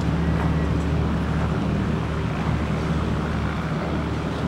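Boat engine running with a steady low drone, with wind on the microphone.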